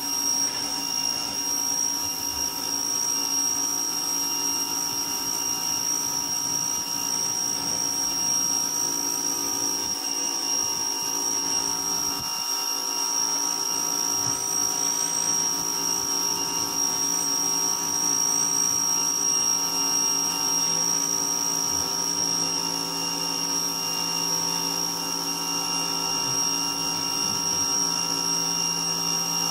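Ryobi electric pressure washer running steadily while its wand sprays water onto concrete, a constant hum with a high steady whine over it.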